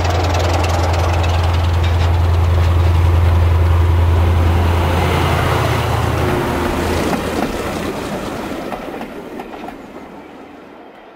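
Diesel train passing: a steady low engine drone with running rumble that fades away over the second half.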